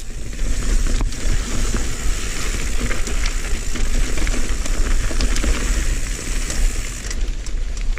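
Mountain bike rolling along a dirt trail: steady tyre noise and rumble of wind on the camera microphone, with small clicks and rattles from the bike over the ground.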